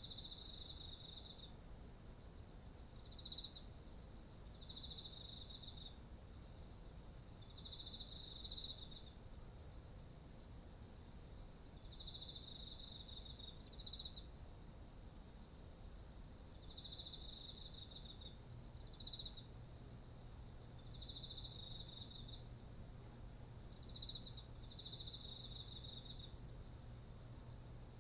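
Several autumn insects calling together by a rice field. One holds a steady, unbroken high trill. Another sings a pulsing trill in phrases of a few seconds with brief pauses, and a third gives shorter, lower bursts between them.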